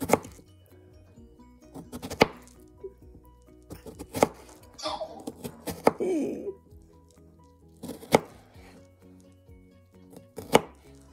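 Kitchen knife slicing through strawberries onto a cutting board: a handful of sharp knocks a couple of seconds apart. Quiet background music plays throughout.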